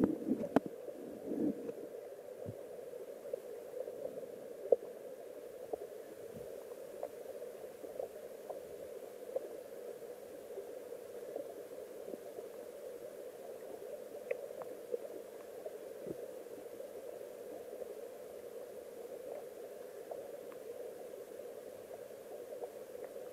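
Underwater ambience of a flowing shallow stream picked up by a submerged camera: a steady muffled rushing of the current. Scattered light clicks run through it, with a few sharper knocks in the first couple of seconds and one near five seconds.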